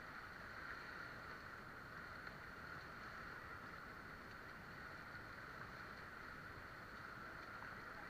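Steady rush of fast river water around a whitewater raft.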